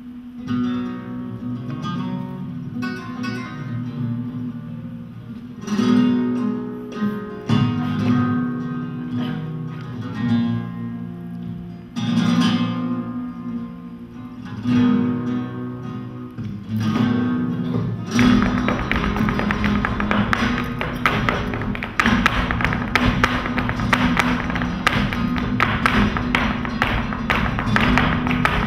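Live flamenco music on acoustic guitars, with ringing plucked notes and strummed chords. About two-thirds of the way in the music turns louder and fuller, with a dense run of quick percussive strikes.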